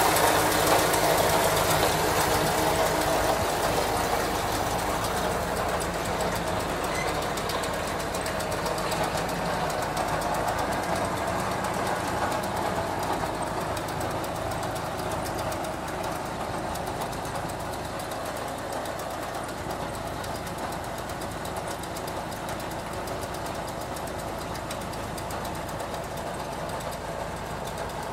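An engine running steadily with a knocking rhythm while the New Holland 1037 bale wagon's load rack is raised. The sound grows gradually quieter over the first half, then holds steady.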